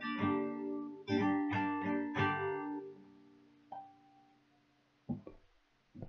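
Acoustic guitar closing the song: a few strummed chords left to ring and fade, then a single plucked note about four seconds in. Near the end there are two short knocks.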